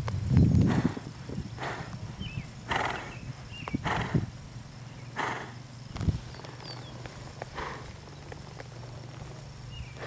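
Horse cantering in a sand arena: soft hoofbeats with breathy puffs about once a second, and small birds chirping now and then.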